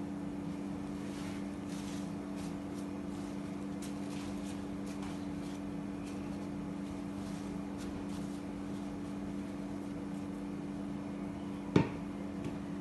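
A steady low hum runs throughout, under faint rustles as handfuls of fresh mint and coriander leaves are spread over rice in a pan. A single sharp knock sounds near the end.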